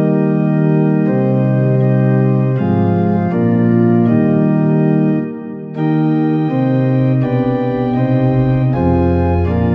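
Organ music: held chords that change every second or so, with a short drop in level about five seconds in.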